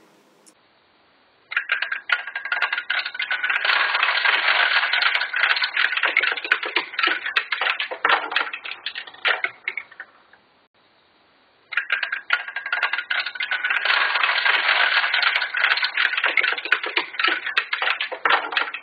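Small plastic toy seeds pouring out of a toy silo and clattering down its plastic chute into a toy seeder's hopper: a dense rattle of many quick clicks lasting several seconds. It stops, and after a short pause the same clatter comes again.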